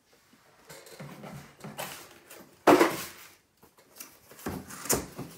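Cardboard and tissue paper rustling as a small cardboard box is pulled out of a shipping box and handled, with a loud cardboard thump about two and a half seconds in and a couple of sharp knocks near the end.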